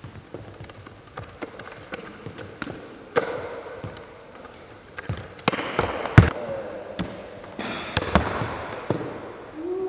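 Basketball being handled in freestyle tricks: irregular slaps of the ball against hands and bounces on a wooden floor, with the loudest, deepest thump about six seconds in.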